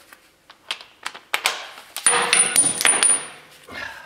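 Metal hand tools and parts clinking and clattering as they are handled and moved: a few single clicks, then a dense run of ringing metallic clatter about two seconds in that dies away toward the end.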